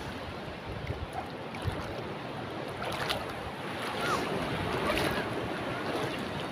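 Shallow seawater washing over a rocky reef flat, a steady rushing wash with wind buffeting the microphone. A few soft splashes or knocks stand out about three and five seconds in.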